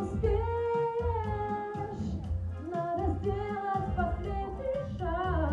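A woman singing a held, wordless melodic line into a microphone over keyboard accompaniment with a steady bass beat about once a second.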